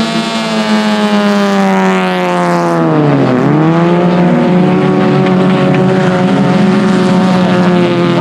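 Four-cylinder IMCA Sport Compact race car engines running at speed on a dirt oval. The engine pitch drops sharply about three seconds in, as when a car lifts off for a turn, then climbs back and holds steady.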